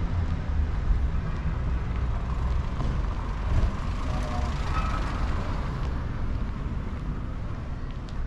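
Steady low rumble of wind buffeting the microphone as the camera travels along on a scooter.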